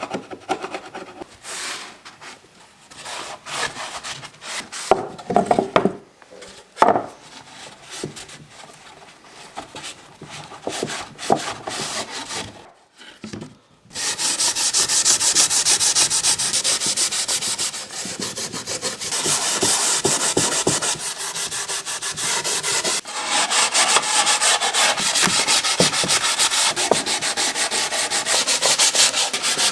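Rubbing strokes on the surface of a vintage toolbox. The strokes are scattered at first, then about halfway through they become fast, steady back-and-forth scrubbing.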